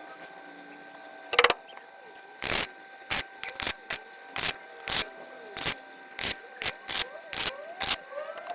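Welder stitch-welding a sheet-metal patch panel: a run of short bursts of arc crackle, each a fraction of a second long, with brief pauses between them.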